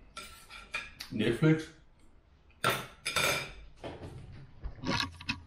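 Knife and fork scraping and clinking on a dinner plate, with the longest, loudest scrape a little past halfway through and a few short clinks near the end.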